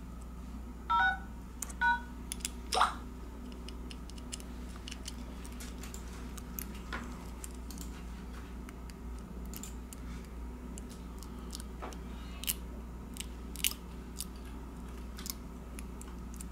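Small sharp clicks and taps of a smartphone's camera module and motherboard being handled and pressed together, over a steady low hum. Two short squeaky chirps come about one and two seconds in, with a louder click just after.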